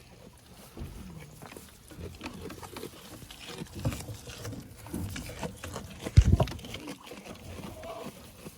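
Goats moving and making low sounds close to the microphone, with scattered clicks, and wind buffeting the microphone in low rumbling gusts, loudest about six seconds in.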